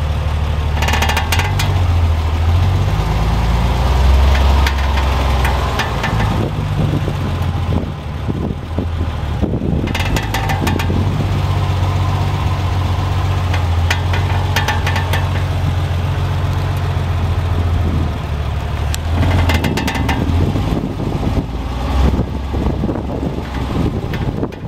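Porsche 993's air-cooled flat-six running steadily while several bursts of rapid clicking or knocking come from the suspension and running gear. This is the noise that appears when turning, and new brake rotors, calipers, drive shafts and hubs have not cured it.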